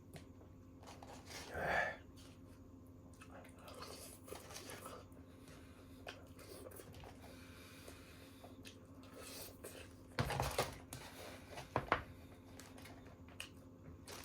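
Eating and food-handling noises: scattered rustles, clicks and chewing, with the loudest handling noises about a second and a half in and again around ten to twelve seconds in, over a steady low hum.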